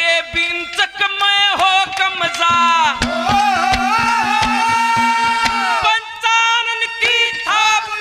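Live Haryanvi ragni: a man sings with hand-drum strikes under the melody, holding one long wavering note from about three seconds in to nearly six.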